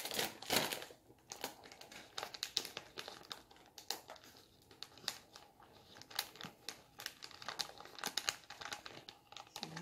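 Plastic food packaging crinkling as it is handled, an irregular run of small crackles, loudest at the very start.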